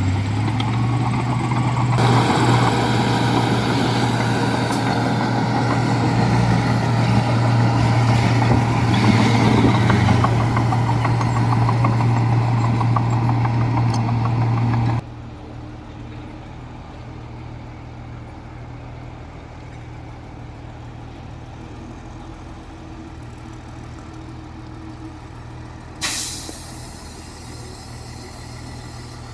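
Heavy diesel engine of a Komatsu bulldozer working under load, with a dense rattling and scraping on top from about two seconds in. About halfway through the sound drops suddenly to a quieter, steady engine running. Near the end a truck's air brake lets out one short, sharp hiss.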